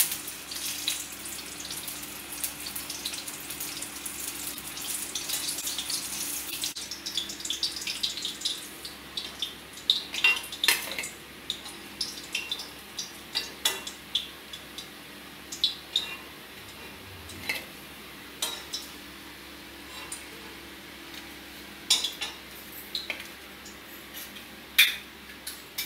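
Gram-flour-battered paneer bajji deep-frying in hot oil in a kadai, a steady sizzle that stops abruptly about seven seconds in. After that come scattered clinks and taps of a perforated steel ladle against the kadai and a steel plate as the fritters are lifted out.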